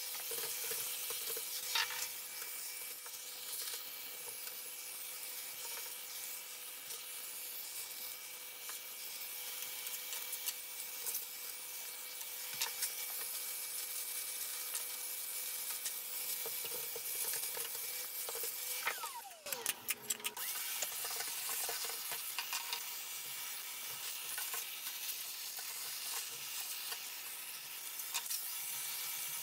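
Vacuum cleaner with a brush nozzle running, a steady airy hiss with a constant motor whine. About two-thirds of the way through it briefly cuts out with a falling pitch and a few clicks, then the whine comes back.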